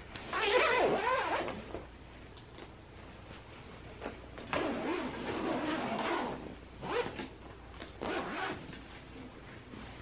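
Zipper on the fabric cover of a DockATot Deluxe+ baby lounger being pulled open in a few rasping strokes, with the cloth rustling as it is handled. The cover is being taken off so it can be swapped for another.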